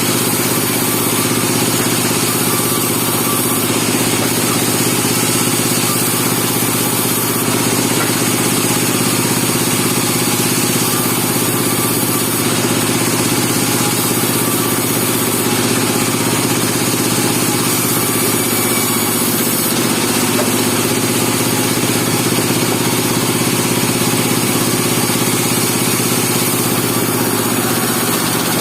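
Engine of a portable bandsaw sawmill running steadily.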